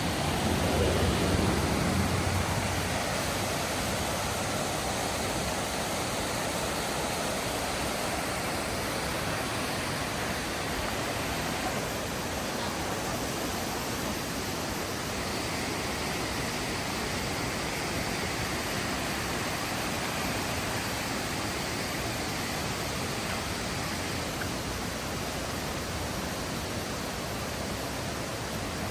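Steady rush of a mountain river's water running through a rocky valley, an even unbroken roar, with a brief louder low rumble in the first two seconds.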